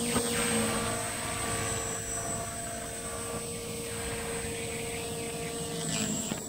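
Beam 450 RC helicopter flying overhead: a steady whine from its motor and spinning rotors, holding one pitch and then shifting about six seconds in.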